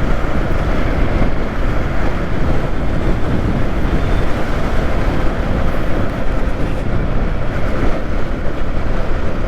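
Yamaha R15 V3 motorcycle under way: a steady rush of wind and road noise with the engine running beneath it, picked up by a helmet-mounted camera.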